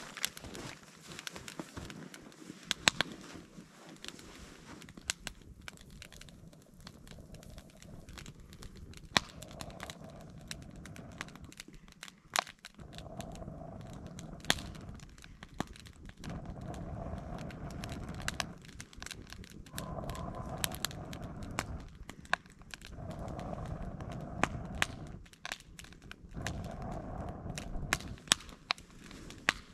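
Wood fire crackling and popping in a Swedish fire log stove. From about halfway there are five long rushes of air, each about two seconds, as someone blows into the base of the log to get it drawing.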